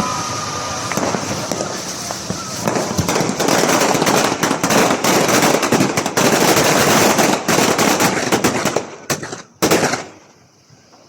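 New Year fireworks and firecrackers going off in a dense, rapid crackle of cracks and bangs. Near the end it thins to a few separate bangs, then dies away.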